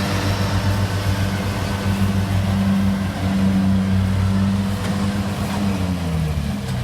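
Kubota DC70 combine harvester's diesel engine running steadily under load, its pitch dropping about five and a half seconds in as it throttles down.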